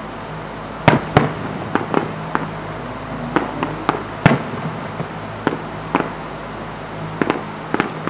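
Aerial firework shells bursting in a display: a string of sharp bangs at uneven intervals, beginning about a second in with the two loudest, over a steady low hum.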